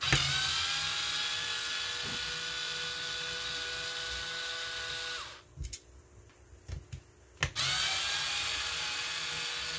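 Black & Decker cordless screwdriver backing screws out of a plastic battery pack casing. Its motor whines steadily for about five seconds, stops, and after a couple of seconds and a few small clicks runs again.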